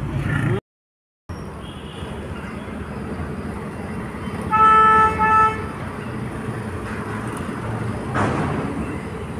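Street traffic running steadily, with a vehicle horn honking twice about halfway through: a longer honk, then a short one. A vehicle passes close near the end.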